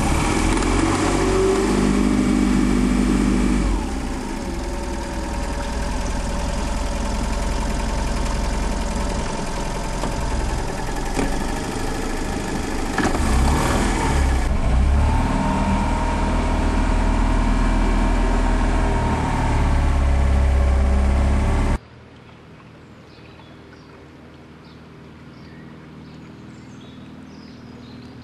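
Honda four-stroke outboard motor running close up, its note shifting a couple of times as the throttle changes. About 22 seconds in it cuts off abruptly, leaving a much quieter open-air background with faint chirps.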